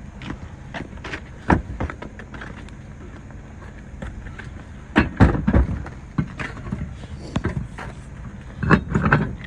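Clatter and knocks of tools and a wheel being handled during a roadside tire change, in three bunches of sharp hits, about a second and a half in, around the middle and near the end, over the steady low rumble of an idling vehicle.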